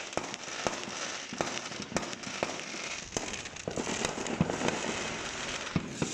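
Fireworks going off in a dense barrage: many sharp bangs at irregular intervals over a continuous crackling hiss, with the loudest bang about four and a half seconds in.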